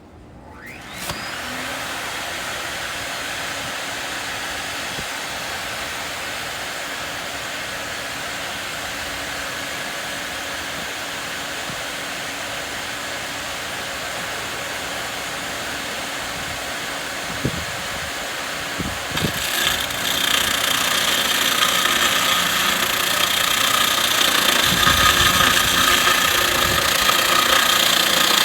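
A Husqvarna S26 dust extractor's motor starts with a quick rising wind-up, then runs steadily. About two-thirds of the way in, the Husqvarna PG280 concrete floor grinder joins it, making the machine noise louder and brighter, with a few low thumps.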